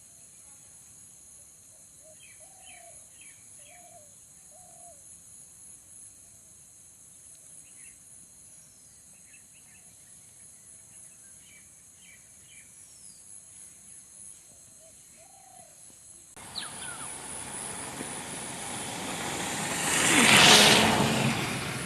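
Birds chirping with short calls over a faint, steady high insect drone. About sixteen seconds in, a broad rushing noise starts suddenly, swells to its loudest near the end and then eases off.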